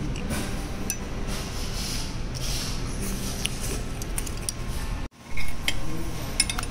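Restaurant background: a steady low hum with scattered light clinks of dishes and cutlery. The sound cuts out for an instant about five seconds in, then comes back with a brief louder clatter.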